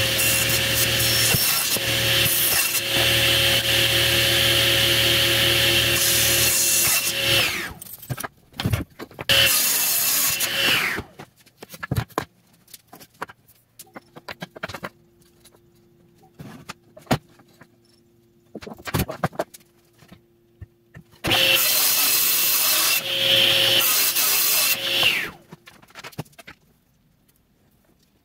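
Table saw running and crosscutting plywood on a sled: a long run of about seven seconds, a short second run, then a third of about four seconds, the blade winding down with a falling whine each time it is switched off. Wooden pieces click and knock between the cuts.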